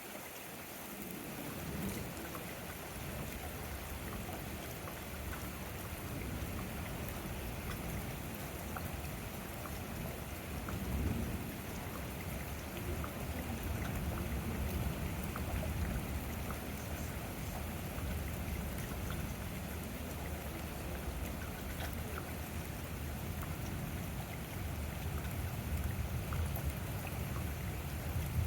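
Steady rain falling, with scattered drop ticks, under a long low rumble of thunder that builds about a second in and swells about a third of the way through.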